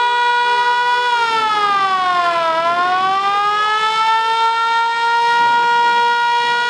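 A siren sounding one steady, high wailing tone that dips in pitch about a second in and climbs back up to the same pitch a couple of seconds later.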